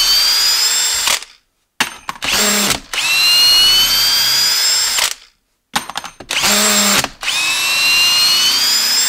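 Hilti brushless hammer drill on its second speed turning a long timber screw in wood. It whines in three runs of about two seconds each, rising slowly in pitch, with short stops and clicks between the runs.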